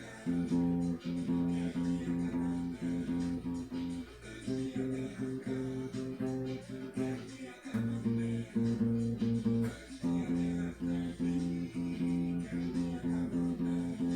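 Acoustic guitar strummed in a steady, choppy rhythm with muted strokes, playing a song's groove and changing chords every few seconds.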